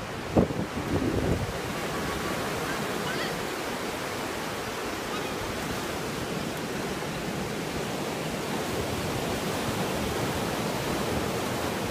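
Steady rushing noise, with a short knock about half a second in.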